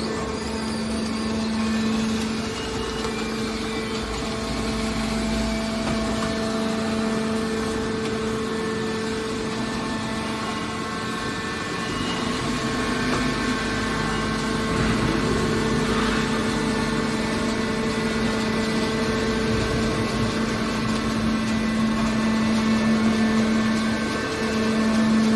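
Hydraulic metal baler running: a steady machine drone with a constant hum that holds one pitch throughout, swelling slightly a few times.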